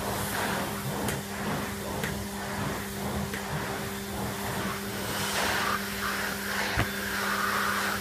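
Numatic Henry HVR200 vacuum cleaner running, most likely on high power, with a steady motor hum over the rush of air, the suction noise swelling and easing as the older-style Numatic floor tool is pushed over carpet. A sharp knock about seven seconds in.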